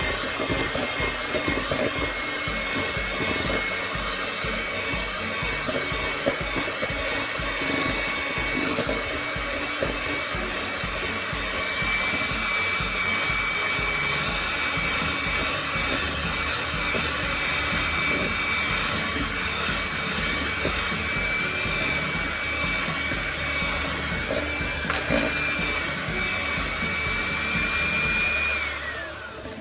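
Handheld electric mixer running steadily, its twin beaters creaming butter and brown sugar in a stainless steel bowl. The motor's steady whine winds down as it is switched off near the end.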